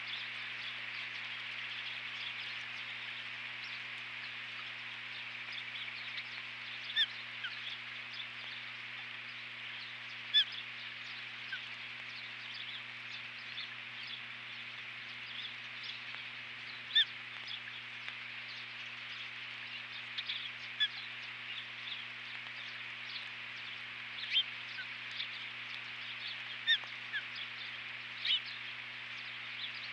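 Brief, sharp, high chirps from ospreys at the nest, about ten scattered a few seconds apart over the second half of the stretch, over a steady hiss and a low electrical hum.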